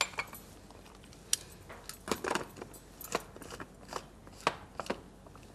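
A mixer-grinder jar and its lid being handled, with a scatter of light clicks and knocks as the lid is fitted on.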